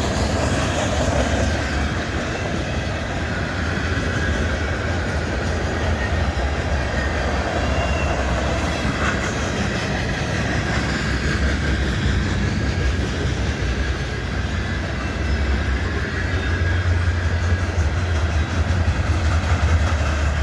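Freight train cars rolling steadily past close by: a loud, continuous rumble and clatter of steel wheels on the rails from a string of tank, grain and coil cars.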